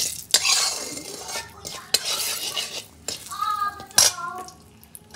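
Steel spatula scraping and knocking against a metal kadhai while stirring spices in hot oil, with a few sharp knocks and a light sizzle.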